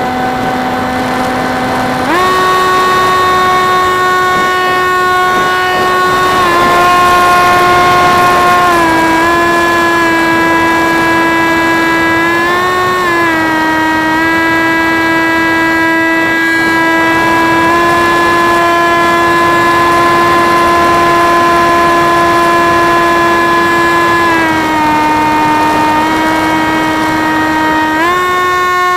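Electric motor and propeller of a Horizon Theory Type W RC plane whining steadily, heard from on board. The pitch jumps up about two seconds in, then shifts down and up a few times as the throttle changes.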